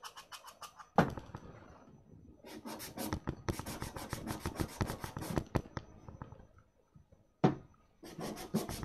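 Hand sanding of a white-painted MDF box with a small piece of 220-grit sandpaper, knocking down the fibres that the paint raised. It sounds as rapid back-and-forth rubbing strokes in runs, the longest in the middle, with a sharp knock about a second in and another near the end.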